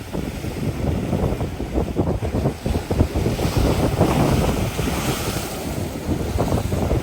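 Strong wind buffeting the microphone in a continuous, uneven low rumble, swelling to a higher hissing rush for a couple of seconds around the middle.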